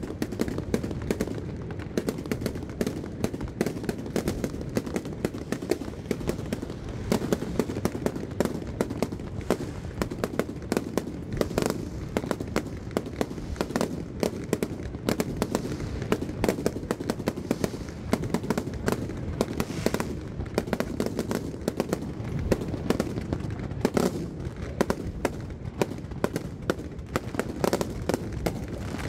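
Fireworks display: a dense, continuous barrage of bangs and crackles from bursting aerial shells, many per second over a low rumble.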